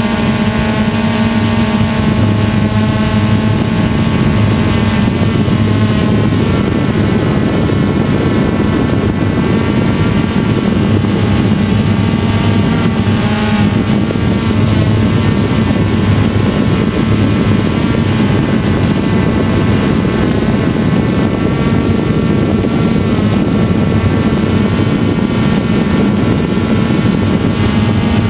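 DJI Phantom quadcopter's electric motors and propellers buzzing steadily, picked up by the camera riding on the drone, with a hum whose pitch drifts slightly as the motors adjust.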